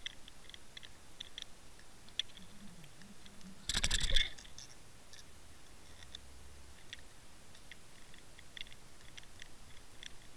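Underwater sound picked up by a submerged camera over a mussel bed: faint scattered small clicks, with one brief loud scraping knock about four seconds in.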